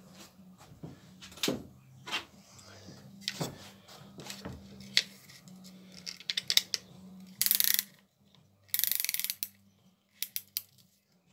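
Metal tool clicks and knocks while a piston with its rings is fitted into a cylinder of a Chevrolet Cruze engine block. About two thirds of the way through come two short ratcheting bursts, about half a second each, then a few sharp clicks.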